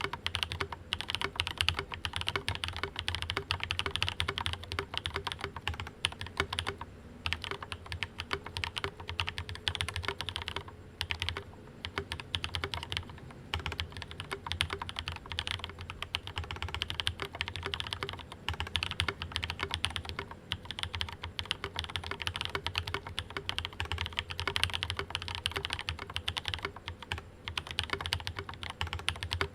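Continuous typing on a Rama Works Kara Soya mechanical keyboard, gasket-style mounted with no internal dampener, fitted with lubed, filmed Cobalt POM linear switches and ABS Cherry-profile keycaps. It is a steady stream of keystroke clacks, with short pauses about seven and eleven seconds in.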